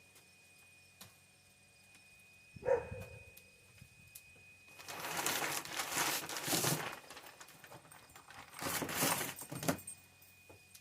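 Apple wood smoking chunks being handled: a single knock, then two spells of rattling and scraping as the chunks are grabbed from their container.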